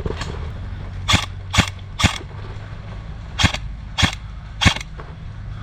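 Airsoft gun shots: six sharp cracks in two groups of three, about half a second apart, the first group about a second in and the second about three and a half seconds in.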